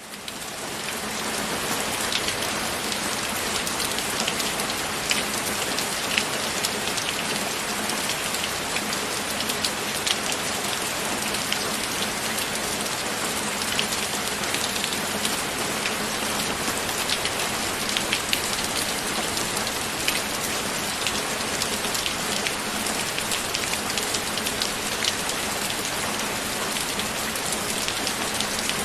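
Steady rain with many individual drops ticking through it, fading in over the first second or two.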